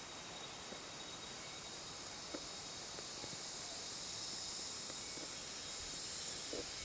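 Steady high-pitched insect chorus with one thin unbroken whine running through it, and a few faint clicks.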